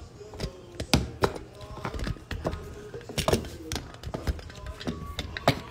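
Fingers handling and tapping a smartphone right at its microphone: a string of irregular taps and knocks.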